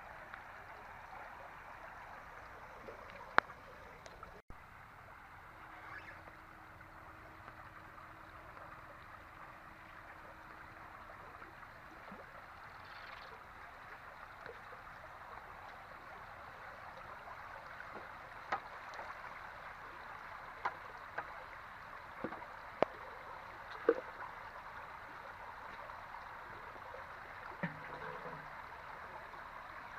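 Flowing floodwater running steadily, with a handful of short, sharp sounds scattered through it, most of them in the second half.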